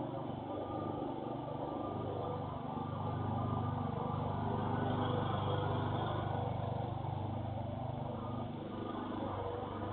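Motor vehicle engine running with a steady low hum that swells louder for a few seconds in the middle and then eases off again.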